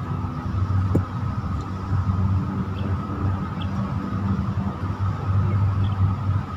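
Steady low rumble of a running motor, a constant deep hum that goes on without a break.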